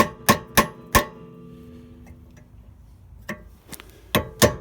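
Hammer blows on a metal punch driven at an angle into a drilled-out Honda Accord brake rotor screw to break it loose: sharp ringing metal strikes about three a second. The blows pause for about two seconds with a couple of light taps, then resume near the end.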